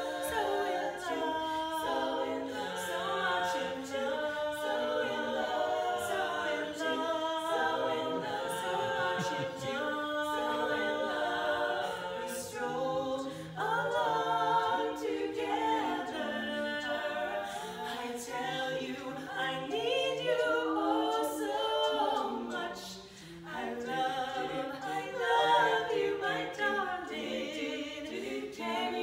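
Women's barbershop quartet singing a cappella in four-part close harmony, holding and shifting sustained chords.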